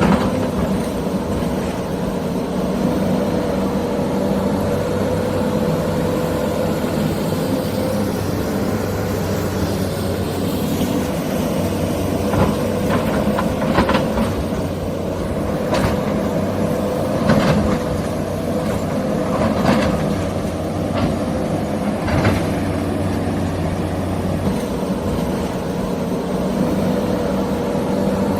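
Huina 1593 RC excavator's electric motors and gearing running with a steady whine, with several sharp clacks in the middle stretch as it works the dirt.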